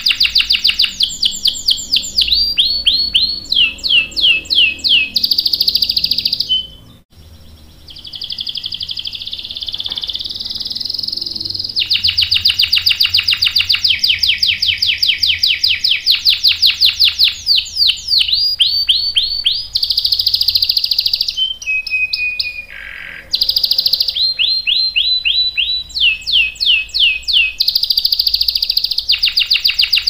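Domestic canary singing: long rolling trills of rapid repeated notes mixed with runs of quick falling chirps. There is a brief pause about seven seconds in and another shorter one past the twenty-second mark.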